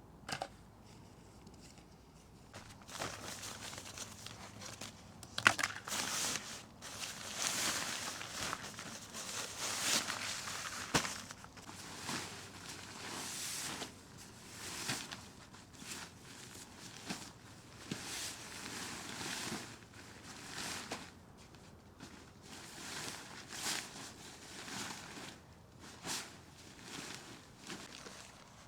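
Footsteps with rustling and crinkling, irregular and on and off, with a few sharp clicks.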